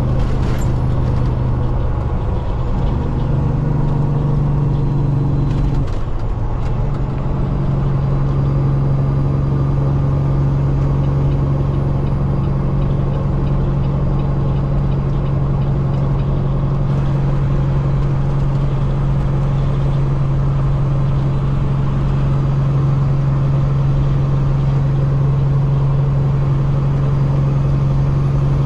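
Semi truck's diesel engine running steadily on the road, with a shift in pitch about two seconds in and a brief dip about six seconds in before it settles into a steady drone.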